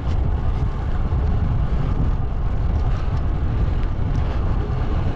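Wind buffeting the microphone while riding a road bike, a loud, steady rushing rumble mixed with road noise.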